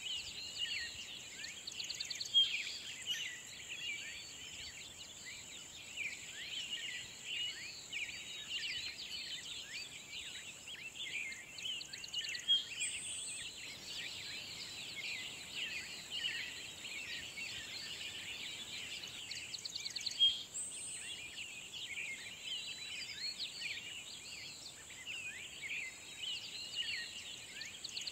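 Dense chorus of many songbirds singing at once, quick overlapping chirps and trills, over a steady high-pitched hiss. A few louder single calls stand out above the chorus.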